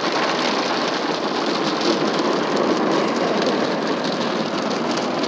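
Automatic car wash heard from inside the car's cabin: water and soap spraying onto the glass and body, with cloth brushes sweeping over the windshield, making a steady, dense wash of noise.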